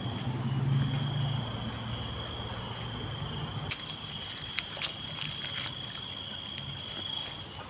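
Night crickets chirring in a steady high trill, with a low hum underneath that stops about three and a half seconds in.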